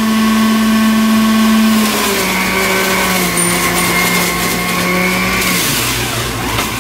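Breville centrifugal juicer running loud, its motor hum dropping in pitch about two seconds in as carrots are pushed down the feed chute and shredded with a grinding noise. The motor slows again near the end.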